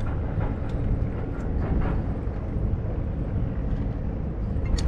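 Steady low rumble over choppy river water, with small irregular splashes and clicks of water lapping against the side of a small boat.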